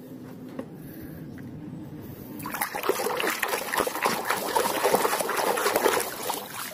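A hand washing a muddy plastic toy in a tub of water, splashing and sloshing. The splashing starts about two and a half seconds in, after a quieter stretch.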